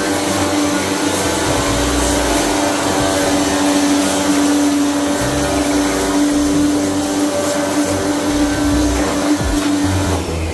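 An electric motor running steadily with a constant hum over a rushing hiss, stopping at the very end.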